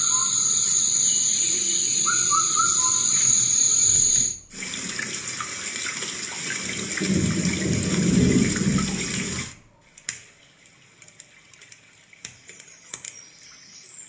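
Built-in nature sound effects playing from a Portronics Dash 6 Bluetooth speaker. First comes a steady high whine with short chirps. About four seconds in it switches to a rushing, water-like hiss, which stops about nine and a half seconds in, leaving only faint clicks.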